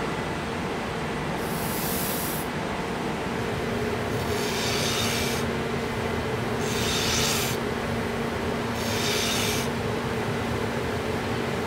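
Bench grinding wheel running steadily with a constant motor hum, as a kitchen knife blade is pressed against it four times, each pass a hissing rub about a second long.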